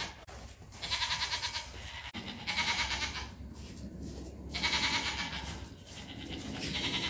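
Goats bleating, about four long wavering calls one after another, calling out to be fed and watered.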